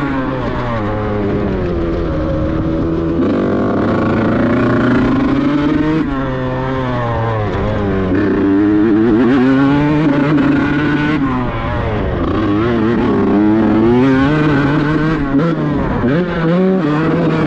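Kawasaki Ninja two-stroke grasstrack racing engine being revved over and over, its pitch rising and falling with each throttle blip over a steady low drone.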